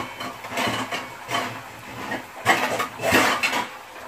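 Metal kitchenware clattering and clinking in a string of knocks, loudest about two and a half to three and a half seconds in: a steel pan lid being fetched from among the pots to cover the pan.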